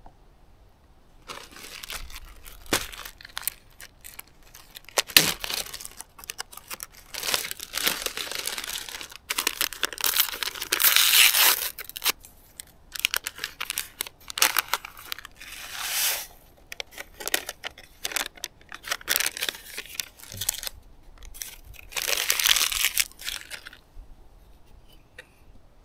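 Paper and a plastic bag crinkling, rustling and tearing in a person's hands in irregular bursts while a pour-over coffee cone is set up with a filter and grounds; the loudest stretch is about halfway through, and it stops near the end.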